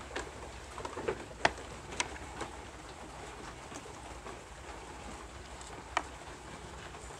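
Ewe being milked by hand: sporadic squirts of thick sheep's milk hitting a small plastic cup, heard as a few sharp ticks and spatters over a faint steady hiss, the strongest about a second and a half in and again near six seconds.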